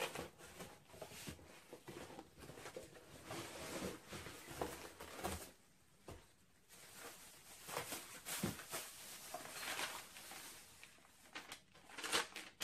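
Packaging being handled and unpacked: irregular rustling, crinkling and light scraping, with a brief lull about halfway through.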